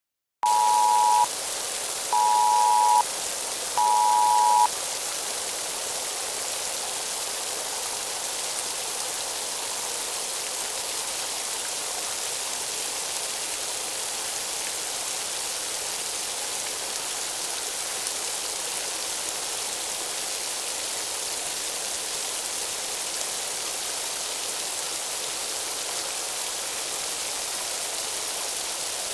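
Three short beeps of the Emergency Alert System's two-tone attention signal, each under a second long, followed by a steady static hiss that runs on unchanged.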